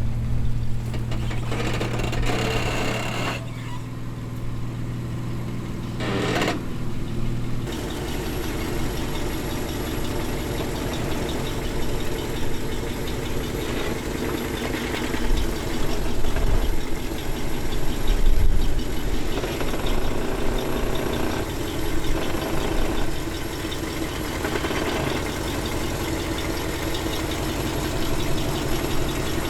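Background music for the first several seconds, cutting off about eight seconds in; then an off-road Jeep's engine running and working at low speed, its level rising and falling unevenly.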